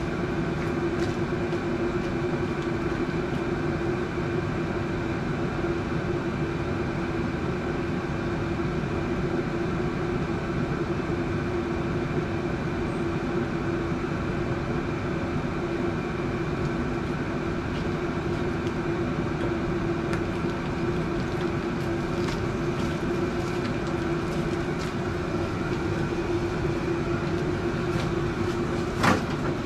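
A steady mechanical drone from a motor or engine running at constant speed, with a single knock near the end.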